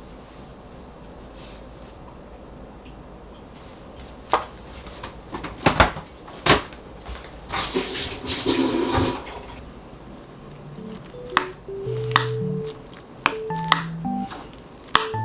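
Kitchenware clattering: dishes and utensils knock and clink several times, the loudest knocks coming about six seconds in, followed by a short hiss. Near the end, soft background music with steady stepped notes comes in.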